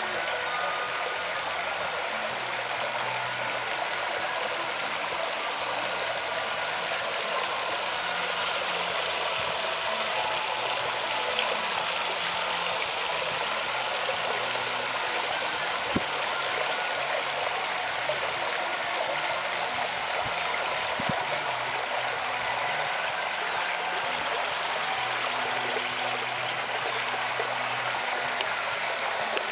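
Steady rushing and splashing of moving water in a swimming pool, with a couple of faint knocks about two-thirds of the way through.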